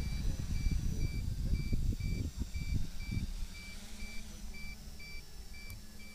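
Electronic buzzer beeping steadily at about two beeps a second, over low wind buffeting on the microphone. About halfway in, the buffeting dies down and a steady low hum sets in.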